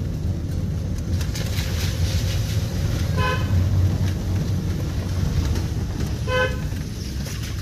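Car horn giving two short toots about three seconds apart, over the steady low rumble of a car driving slowly, heard from inside the cabin.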